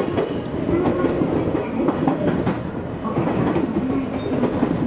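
JR Kyushu 813 series electric train running, heard from inside the front car: the wheels click and clatter over rail joints and points, over a steady running rumble with a wavering tone.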